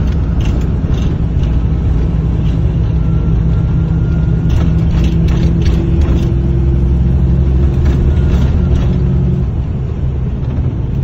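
Steady engine and tyre rumble heard from inside a moving vehicle on a highway. A faint hum rises slightly in pitch midway, and a few light clicks or rattles come through.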